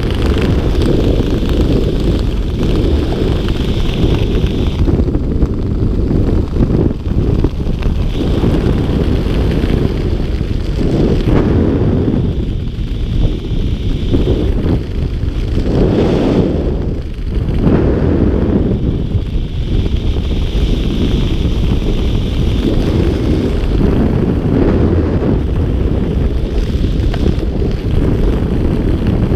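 Loud, steady wind buffeting an action camera's microphone as it moves fast through the air high above the ground, easing briefly a couple of times around the middle.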